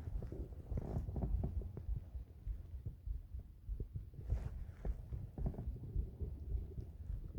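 A human heartbeat thudding low and steady, with occasional small stomach gurgles and clicks over it.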